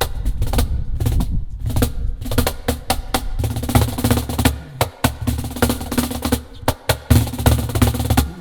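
Piano and percussion duo playing an instrumental piece: quick, sharp hand-percussion strikes in a busy rhythm over sustained low piano notes.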